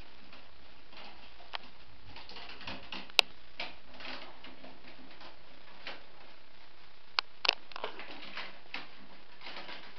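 Willow rods rustling and creaking as they are woven by hand around the stakes of a round wicker basket, with irregular sharp clicks where rods knock against each other; the loudest click comes about three seconds in, and two more a little after seven seconds.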